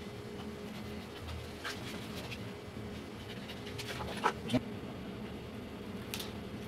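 Scissors snipping clear plastic label sheet: a few short, sharp snips, the two loudest about four seconds in, then a brief crinkle of the plastic sheet near the end, over a steady low hum.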